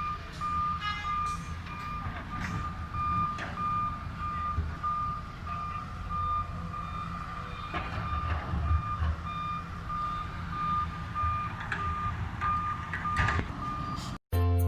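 Reversing alarm on heavy construction machinery beeping steadily in a single high tone, over the low running of a diesel engine, with scattered knocks and clanks from the work.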